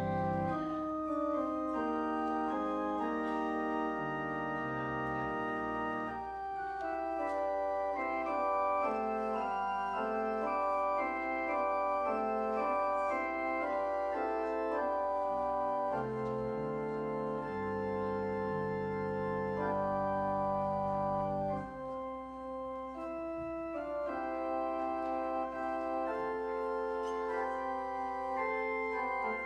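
Organ playing a slow prelude of sustained chords, its notes held without dying away, with a deep bass note held for a few seconds past the middle.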